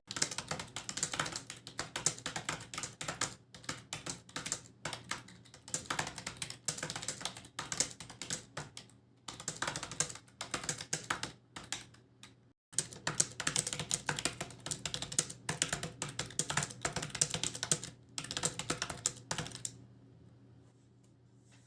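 Fast typing on a computer keyboard, a dense run of key clicks with short pauses about 9 and 12 seconds in, stopping about 20 seconds in.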